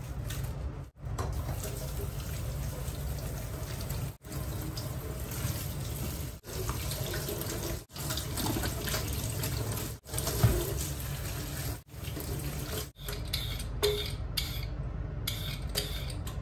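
Tap water running into a stainless steel sink as vegetables are rinsed in a plastic colander, cutting out briefly several times. Near the end, a vegetable peeler scraping strips off a carrot.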